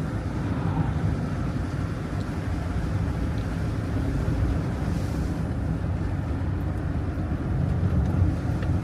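Engine and road noise inside a moving motorhome's cab: a steady low drone with no sudden events.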